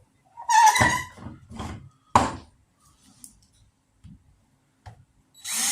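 A few wooden knocks and thunks as a block of dry, hard oak and a drill are handled and set in place, the loudest about two seconds in. Near the end an electric drill starts up and runs steadily, beginning to bore into the oak.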